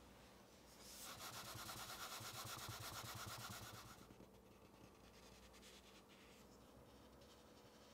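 A paper towel rubbed around the inside rim of a metal cake pan, wiping it clean. A soft scrubbing runs for about three seconds, then a few fainter strokes follow.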